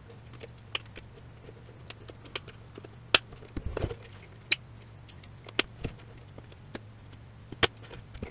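Small screwdriver prying at the plastic casing of a Siemens VDO BSM fusebox module, the plastic latches and housing giving about ten sharp clicks and snaps, with a short scrape a little before the middle.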